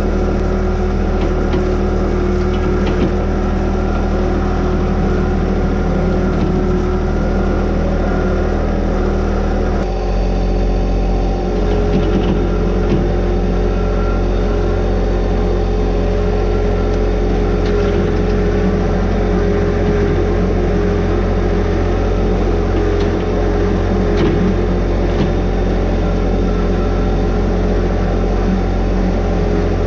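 Tractor engine running steadily under load while pulling a box blade through the dirt. Its note changes abruptly about ten seconds in.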